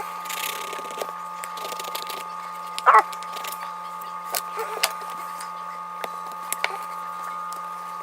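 Small handling noises of a 3D-printed plastic puzzle piece being filed with a fingernail file and worked into a jigsaw puzzle: a short scrape in the first couple of seconds, then scattered light clicks and taps, the loudest about three seconds in, over a steady background hum.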